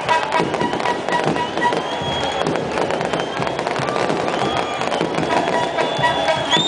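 Fireworks and firecrackers crackling in rapid pops over a noisy stadium crowd, with thin whistling tones, some rising, sounding over them.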